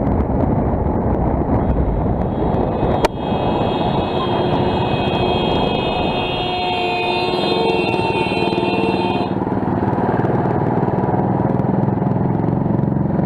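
Motorcycle running on the move, its engine rumble mixed with wind noise. About three seconds in there is a sharp click, followed by a steady, high-pitched, many-toned sound that lasts about six seconds and then stops.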